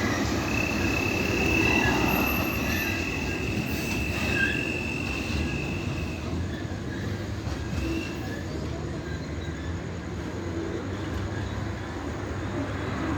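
Train rolling past with a steady rumble of its cars, wheels squealing in one steady high tone for the first six seconds or so.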